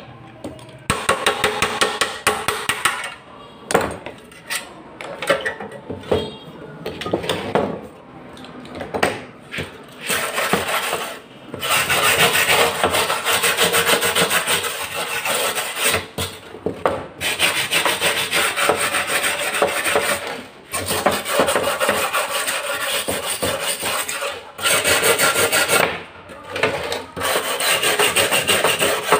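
Fast back-and-forth scraping and rubbing on the metal of a long-neglected gas stove during its cleaning for repair, in runs of several seconds with short pauses between them.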